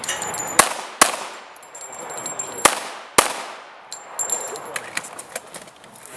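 Handgun shots on a pistol range: four loud shots in the first three and a half seconds, each with an echoing tail, and a thin high ringing of struck steel targets after them. Fainter sharp pops and ticks follow.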